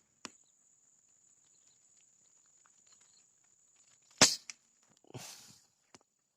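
A single sharp shot from a PCP air rifle about four seconds in, followed about a second later by a short rustle. A faint, steady high-pitched whine runs underneath.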